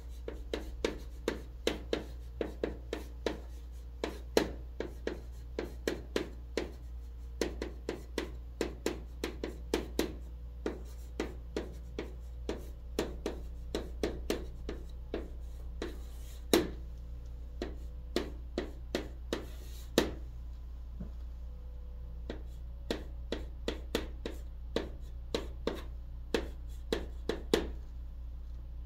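Chalk writing on a green chalkboard: a quick irregular run of short taps and scrapes as each stroke of the letters is drawn, a few strokes louder than the rest, with a brief lull a little past two-thirds through. The chalk is held in a chalk holder.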